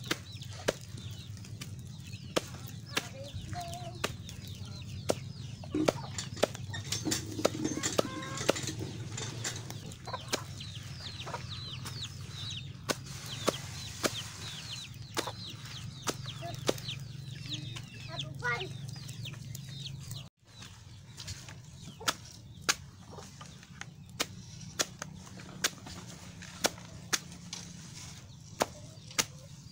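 Knife chopping taro stalks into a woven basket, one sharp chop about every second. Chickens cluck and chicks peep alongside, mostly in the first half.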